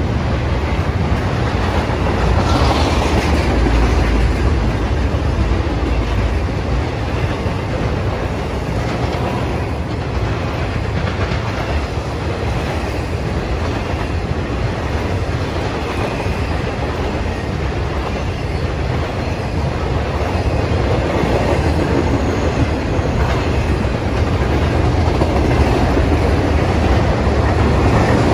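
BNSF double-stack intermodal freight cars rolling past, their steel wheels running on the rails in a loud, steady rumble.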